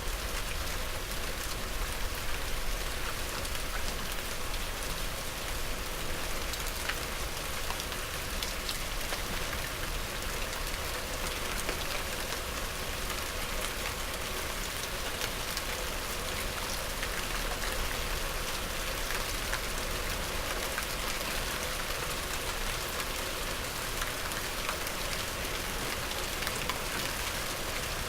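Steady medium rain falling on a surface, a continuous hiss scattered with fine individual drop patters.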